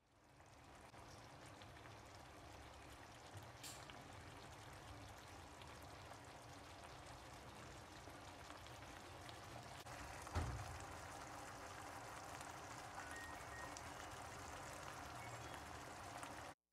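Faint, steady crackle of a beef-and-egg gravy simmering in a frying pan on a portable gas stove, with one soft thump about ten seconds in.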